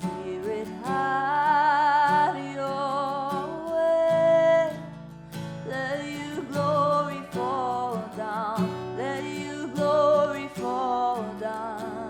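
Acoustic worship song: strummed acoustic guitar under a sung melody of held notes with vibrato.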